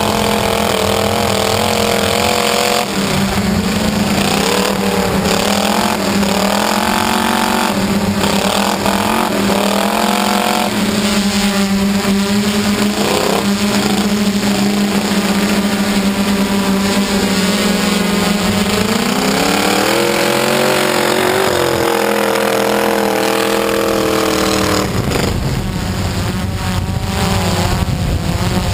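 Steady hum of a hexacopter's motors and propellers, with a truck engine revving up and falling back again and again beneath it.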